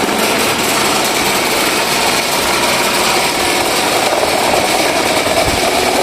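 Electric wall fan running with a loud, steady, rapid rattling clatter, the sound of a wobbly, out-of-true fan.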